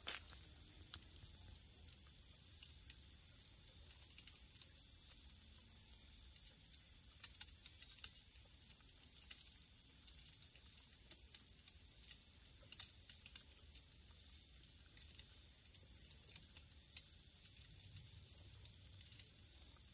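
Crickets trilling in a steady, high-pitched night chorus, with a few faint clicks.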